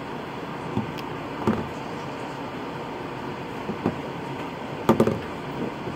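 Steady room hiss with a few light knocks and clicks as slime supplies are handled at a table, the loudest pair about five seconds in.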